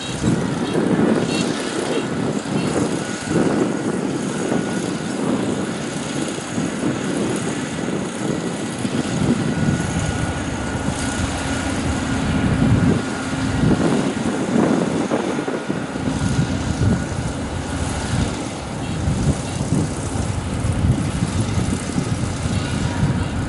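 Kubota ER447 combine harvester running steadily while harvesting wheat, its engine and machinery making a continuous dense mechanical noise.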